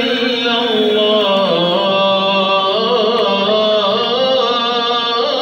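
Slow melodic chanting with long held notes that glide up and down without pause, in the style of an Islamic nasheed.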